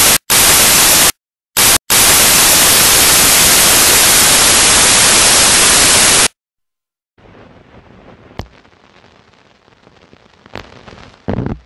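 Loud, even hiss of static, cutting out twice for a moment and stopping abruptly about six seconds in. Then faint background noise with a sharp click and, near the end, a short thump.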